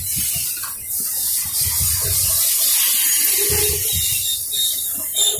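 Freight train of covered hopper wagons rolling past close by: a steady hiss and rumble of steel wheels on the rails, with irregular low knocks.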